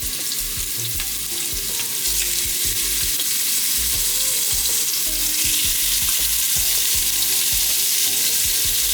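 Seasoned oxtail sizzling in a hot pot with a little olive oil, with short low knocks of the pieces being stirred. The sizzle grows a little louder about two seconds in.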